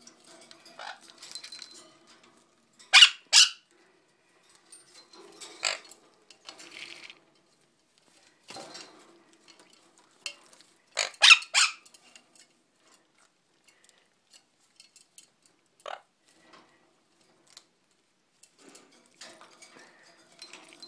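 Sun conure giving short, shrill squawks: a pair, then a single one, a quick run of three, and a last one. Softer splashing and wing-flapping in a shallow water dish comes in between.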